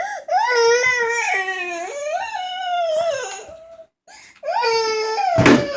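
Toddler crying in two long, wavering, high-pitched wails, the cry of an upset small child. A single sharp knock sounds during the second wail.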